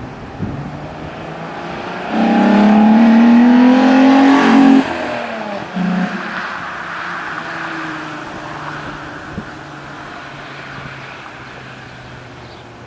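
Volkswagen VR6 narrow-angle V6 engine idling, revved hard about two seconds in and held for nearly three seconds with its pitch climbing slightly, then dropped suddenly. A short second blip of the throttle follows about a second later before it settles back to a steady idle.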